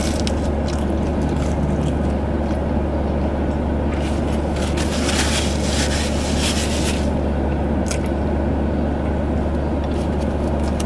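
Steady low hum of a car idling, heard from inside the cabin. About four seconds in, a few seconds of rustling and crackling rise over it.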